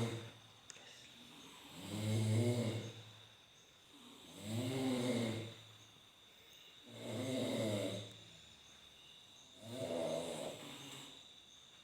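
Snoring from someone asleep: a pitched snore on each in-breath, coming regularly about every two and a half seconds, four times.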